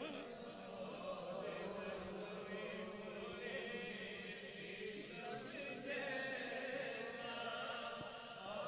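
Faint group of men's voices in a steady chant-like drone.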